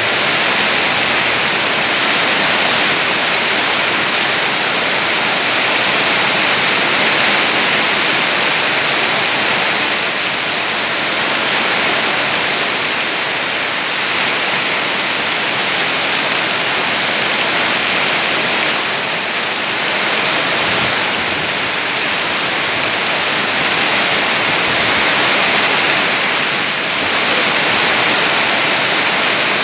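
Heavy rain pouring down through tree foliage in strong wind: a loud, steady hiss that swells and eases slightly.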